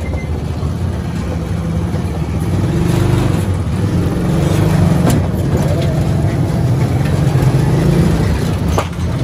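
Motor rickshaw's engine running steadily as it drives along with a load, growing a little louder from about three seconds in.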